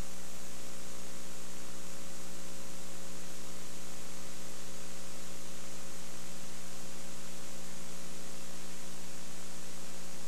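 Steady electrical hum with constant hiss on the old recording's audio track, unchanging throughout, with no game sounds or voices audible above it.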